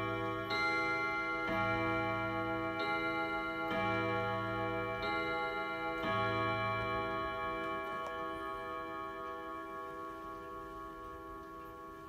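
ODO 62 carillon wall clock's hammers striking its gong rods, a new strike about every second for the first six seconds, after which the gongs ring on and slowly fade; the clock's ticking runs underneath.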